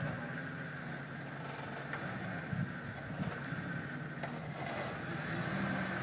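Jeep Wrangler's engine running steadily at low revs as it crawls over rock, a low drone with no revving.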